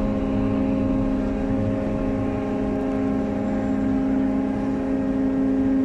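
Crane machinery running with a steady droning hum over a low rumble as it hoists a steel plate on wire slings.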